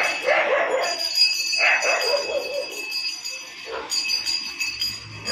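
Bells jingling steadily, with a few short dog barks.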